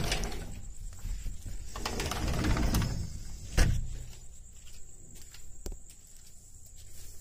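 Footsteps and phone handling while walking on paving, with one sharp knock about three and a half seconds in and a few small clicks after it. A steady faint high-pitched whine runs underneath.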